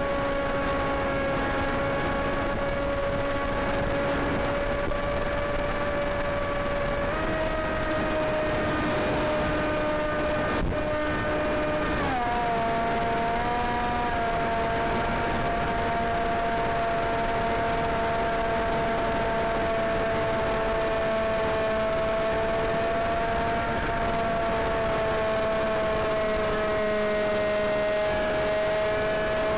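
Electric brushless motor of a Blade Theory W flying wing whining in flight, heard through the onboard camera's microphone over a steady hiss. Its pitch steps up about a quarter of the way in, jumps again a few seconds later with throttle, then sags slowly.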